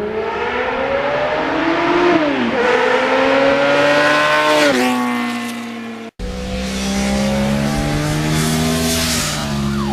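A motorcycle engine accelerating hard, its pitch climbing and dropping back at each of two gear changes; after an abrupt cut about six seconds in it runs at a steadier speed.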